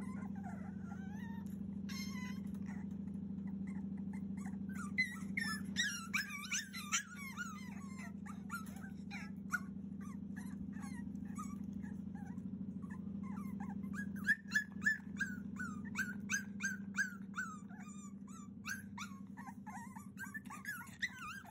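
A 42-day-old Cavalier King Charles Spaniel puppy whining and yelping in runs of short, high, wavering cries, with a quieter lull in the middle. The puppy is crying to be let out of its crate. A steady low hum runs underneath.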